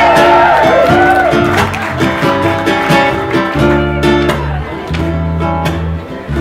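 Ukulele ensemble strumming a song in time, with sustained bass notes changing underneath.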